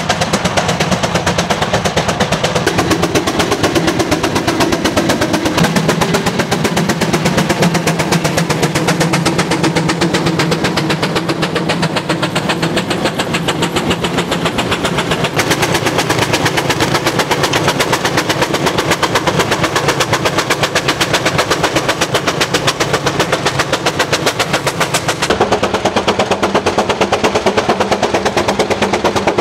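An engine running with rapid, evenly spaced sharp exhaust beats. Its tone changes a few times along the way: a few seconds in, about halfway through and near the end.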